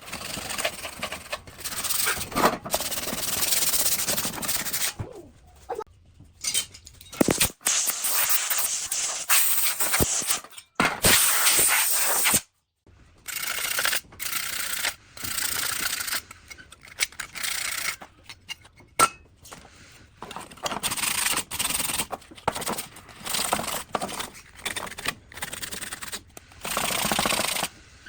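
Rough rubbing and scraping of hand work on parts, coming in bursts of a second or a few seconds that start and stop abruptly, with a full break about twelve and a half seconds in.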